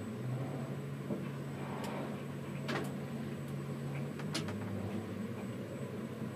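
Tower crane's electric drive humming steadily, heard from high on the crane, with a few sharp clicks; the hum drops to a lower pitch about four seconds in.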